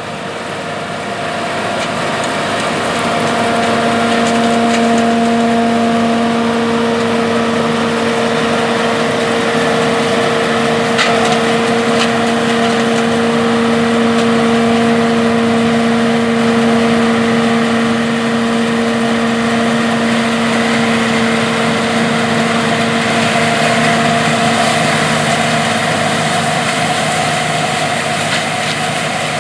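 John Deere 4420 combine harvesting corn: its engine and threshing machinery run with a steady drone and a constant pitched whine, swelling over the first few seconds and then holding steady.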